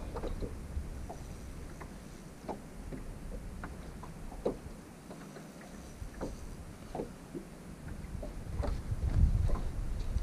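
Water lapping and slapping against a bass boat's hull in short, irregular slaps, with a low rumble building near the end.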